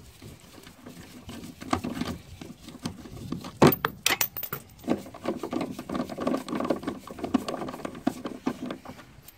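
Socket ratchet clicking as it turns the upper mounting bolt of a VW Golf Mk4 rear shock absorber. The clicks come in quick runs, with a few sharper metallic knocks about four seconds in.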